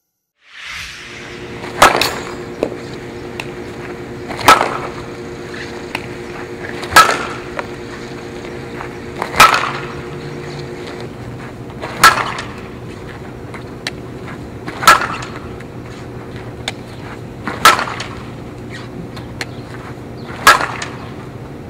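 Softball bat hitting pitched softballs: eight sharp cracks of bat on ball, one about every two and a half seconds, over steady background noise.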